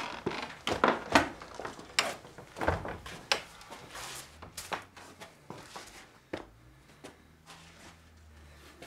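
Old wooden door being opened, followed by a run of irregular knocks and scuffs, loudest in the first few seconds and thinning out toward the end.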